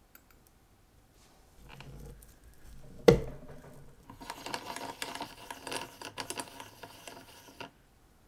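A Horotec crystal press fitting the green-tinted crystal into a Rolex Milgauss 116400GV case: a single sharp click about three seconds in as the crystal is pressed home, followed by a few seconds of scratchy, crackly rustling as the press is worked, ending abruptly.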